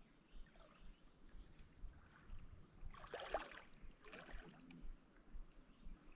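A couple of faint water splashes by a kayak, about three seconds in and again a second later.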